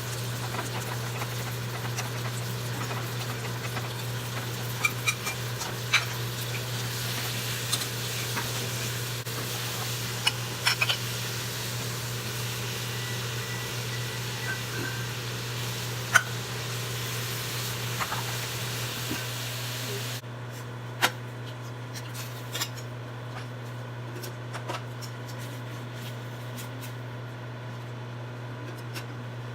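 Utensils clicking and tapping against a bowl now and then during a meal of noodles, about twenty sharp clicks spread through, over a steady low hum and hiss; the hiss drops away about two-thirds of the way through.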